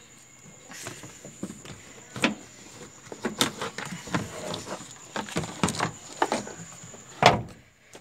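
Plastic B-pillar trim panel of a car being jerked loose by hand: a run of clicks and knocks, with the loudest knock about seven seconds in.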